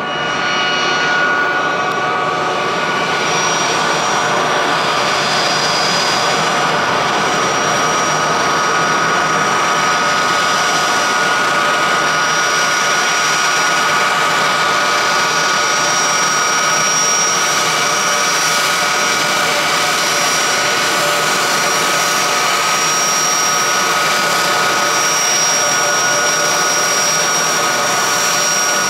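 Boeing 757's twin turbofan engines running at taxi power as the airliner taxis in: a steady jet whine with several held high tones over a rushing noise, swelling in the first second or so and then holding level.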